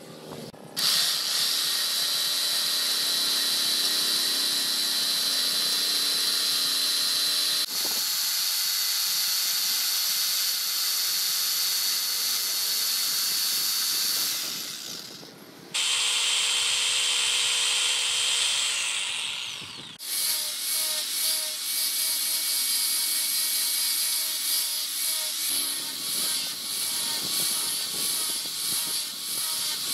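Electric jigsaw cutting a strip of wood, its motor running steadily with a high whine, stopping and starting again in two runs. From about twenty seconds in an angle grinder with a sanding disc takes over, sanding the wooden piece with an uneven, pulsing sound.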